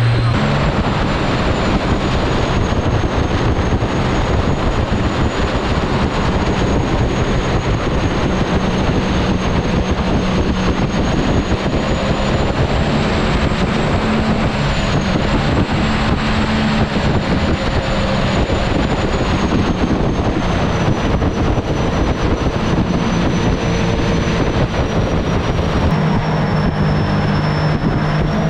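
Mini jet boat running at speed: a steady engine drone under rushing wind and water, with a thin high whine that drifts slowly up and down in pitch.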